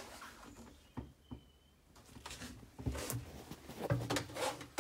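Scattered light knocks and clicks from fittings and the camera being handled in a small washroom, with a brief faint squeak about a second in.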